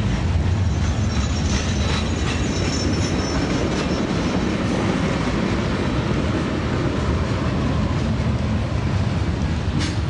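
HO-scale model Southern Pacific freight train running downhill, a steady rumble carrying the whine of its locomotives' dynamic brakes. A sharp click comes near the end.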